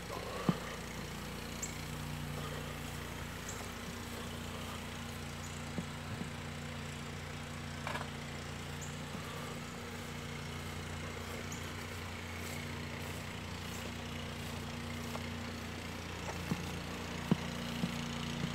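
Small engine running steadily at an even speed, most likely the pressure washer's gas engine, giving a low constant drone with a few faint clicks over it.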